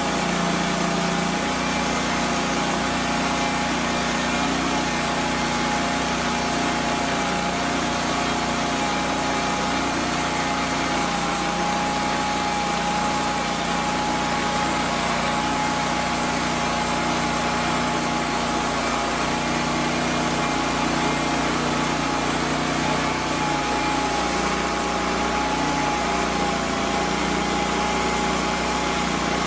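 Portable band sawmill running: its engine drones at a steady speed under a constant high whine, with no change in pitch or level.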